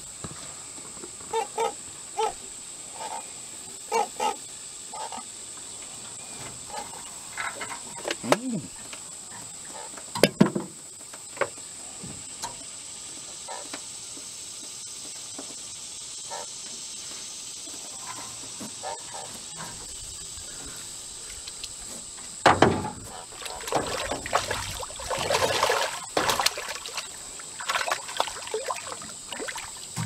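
Insects droning steadily at a high pitch. Near the end, a hooked fish splashes at the surface as it is drawn up beside the boat and netted, the loudest sound; earlier there are scattered short knocks and rustles.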